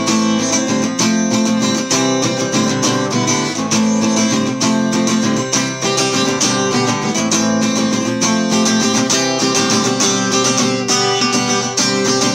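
Guitar chords strummed in a steady rhythm, an instrumental passage between sung lines of a song.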